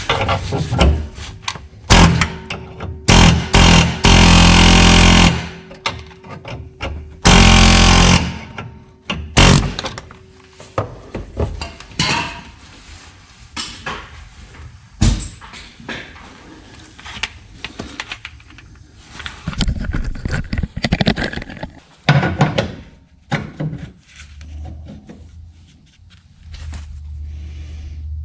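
Loud bursts of a power tool driving in short runs, the longest about a second and a half, during removal of a worn rear trailing arm bushing, amid irregular clanks and knocks of metal tools and parts.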